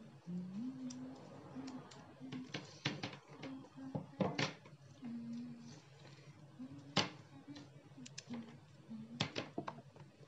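Scattered sharp clicks and knocks of kitchenware being handled on a counter, the loudest about three, four and a half, seven and nine seconds in. A low tune in held notes runs quietly underneath.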